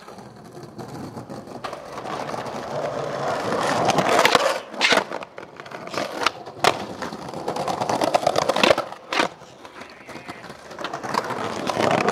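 Skateboard wheels rolling over stone paving slabs, growing louder over the first few seconds, with several sharp clacks of the board striking the stone about four, five, six and a half and nine seconds in. The rolling builds again near the end.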